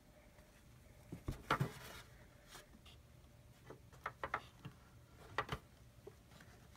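Hands handling a small plastic toy dollhouse bed and its fabric blanket: scattered light clicks and taps. The loudest cluster of knocks comes about a second and a half in, and a few lighter ones follow later.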